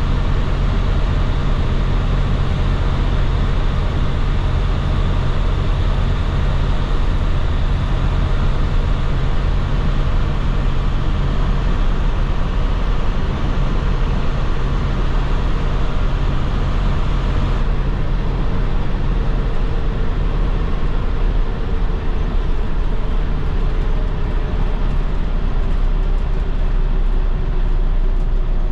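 MaxxForce DT inline-six diesel of a 2010 IC FE school bus running steadily under way, with road noise. About three-quarters of the way through the low engine hum eases, and a faint whine slowly falls in pitch near the end.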